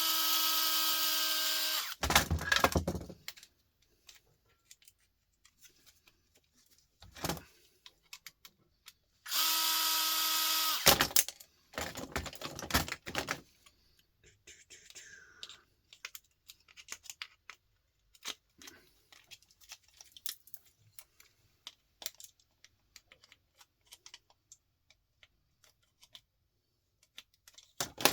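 A power drill runs steadily for about two seconds, twice, driving or removing screws in scrap electronics. Each run is followed by clattering knocks of parts being handled, then scattered small clicks and rattles.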